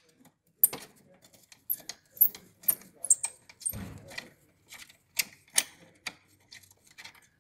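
Sharp metal clicks and clinks of a flat spanner working on the wheel hub of a rusty vintage reel lawn mower, coming at an irregular pace, with one duller knock near the middle.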